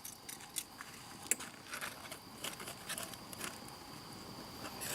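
Faint scattered light clicks and rustles over a steady, high-pitched drone of insects.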